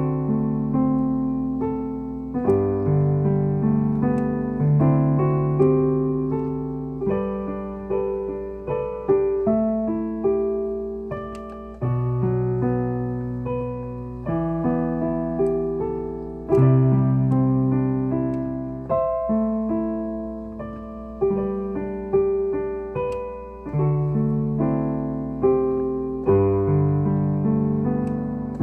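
Piano played slowly in chords, each struck and left to ring and fade before the next, a new chord every second or two.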